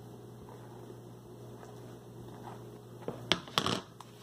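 Handling noise from a clear plastic mixing bowl and a soft gel on a tabletop: a low steady hum, then about three seconds in a brief cluster of crackles and knocks.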